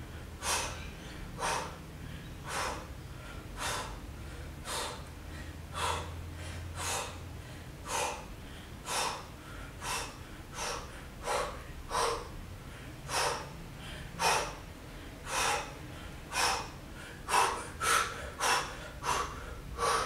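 A woman's hard, audible breaths, about one a second, in time with her tricep dips; they come faster in the last few seconds.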